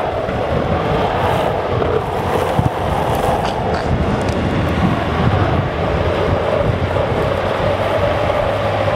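Steady rush of wind across the microphone mixed with the roar of longboard wheels rolling on asphalt at downhill speed.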